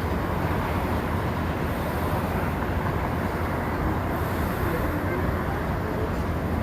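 Steady outdoor city background noise: an even, low rumble with no distinct events.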